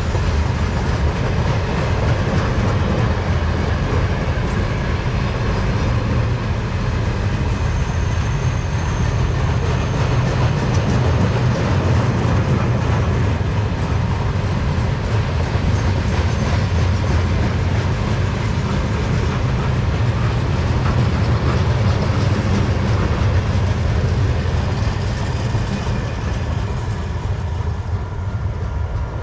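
Class 55 (LDH 125) and ex-DB class 233 'Ludmilla' diesel locomotives, with its 12D49M engine, hauling a works train: a steady, loud diesel engine rumble mixed with rail and wheel noise, easing slightly near the end.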